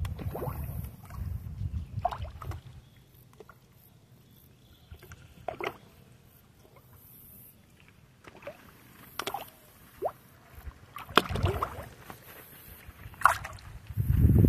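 Water sloshing and splashing in short, separate bursts, with bouts of low rumble on the microphone that are loudest near the end.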